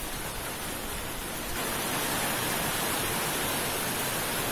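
Pouring rain drumming on a bus-shelter canopy overhead, getting heavier about a second and a half in.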